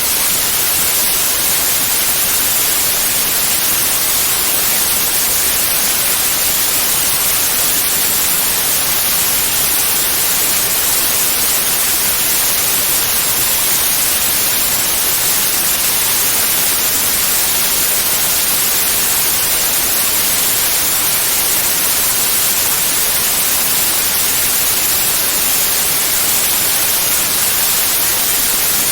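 Synthetic white noise: a steady, even hiss that is brightest in the high pitches and never changes in level.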